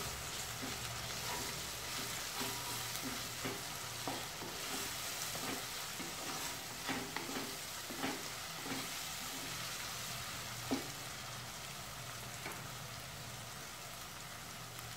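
Onion-tomato masala with ginger-garlic paste frying in oil in a non-stick kadai, sizzling steadily while it is stirred, with irregular scrapes and knocks against the pan. The stirring stops about two-thirds of the way through, and the sizzle carries on alone.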